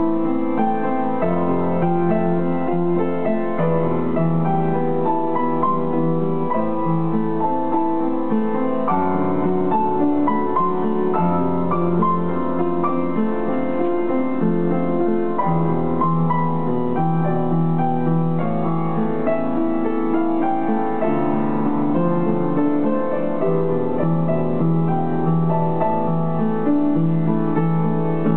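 Upright piano played without pause: a melody of many short notes over held bass notes and chords that change every two to three seconds.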